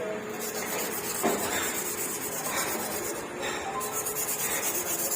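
Rubbing and scraping from hand work on engine parts, with a few short, sharper strokes.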